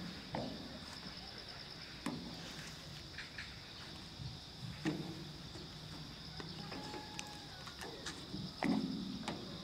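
Steady high chirring of insects, with a few dull knocks from a small rowboat as a person steps and shifts his weight on it, the loudest near the end.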